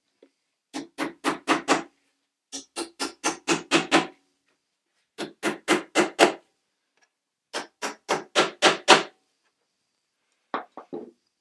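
Hammer tapping screws through a wooden frame to mark their positions on the beech box beneath: quick runs of five to seven light blows, about four a second, in four runs with pauses between, then a short run of three near the end.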